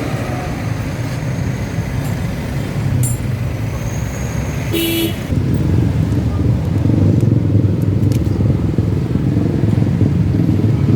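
Yamaha RX-King's two-stroke single-cylinder engine running steadily, fitted with a size 3.25 carburettor main jet, its sound growing louder about five seconds in. A short horn-like beep comes just before that.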